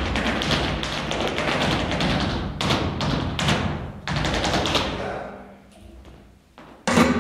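Flamenco footwork (zapateado): a fast, dense run of heel and toe stamps from a dancer's shoes on the stage floor, slowing into a few single accented stamps about halfway through. After a short near-quiet pause, a loud hit with a low ringing tone lands near the end.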